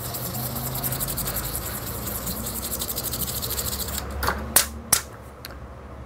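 Small brush scrubbing a thin metal BGA reballing stencil in rapid, even strokes, then stopping; two sharp clicks follow about four and a half seconds in.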